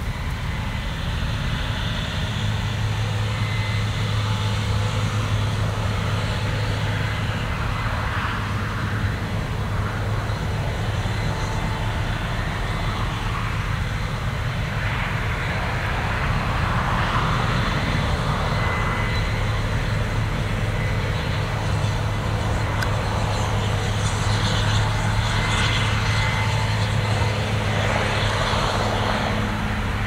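Case IH 9120 Axial-Flow combine harvester running steadily under load while cutting wheat: a constant low diesel engine drone with a rushing hiss of threshing and crop that swells and fades a few times.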